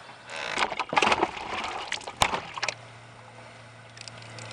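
Handling noise in a kayak as a caught crappie is dealt with: a run of scuffs and knocks with one sharp click about two seconds in, then a low steady hum.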